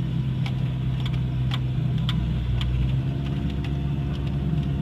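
Vehicle engine running steadily at low speed, with scattered sharp clicks and knocks about every half second as it rolls slowly over rough ground.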